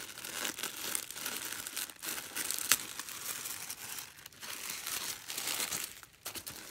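Wrapping tissue paper rustling and crinkling as hands unfold it and fold it back, with one sharp crackle a little under three seconds in.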